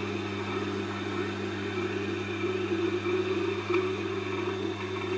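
Tormek T8 sharpening machine's motor running with a steady hum, while a knife blade held in the jig is worked along the turning wheel with a wavering rubbing sound.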